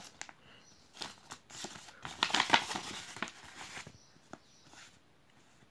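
Clear plastic sleeve of banknotes crinkling and rustling as it is slid out of a paper envelope and laid down, on and off for about three seconds, then a few light taps.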